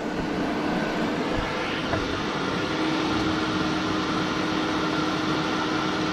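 Electric radiator cooling fan running steadily, a constant whir with a steady hum. It is being kept on by a heat-triggered switch that has not yet cooled down.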